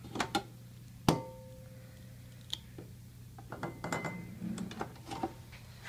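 Hard case parts and an accessory pack being handled and slid into the slots of an equipment case: a few sharp clicks and knocks, the loudest about a second in with a brief ring after it, then a run of small clatters, over a steady low hum.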